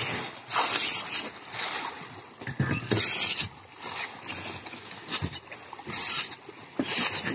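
Water splashing in repeated bursts, about one a second, as a crowd of pangasius catfish thrash at the surface to take feed.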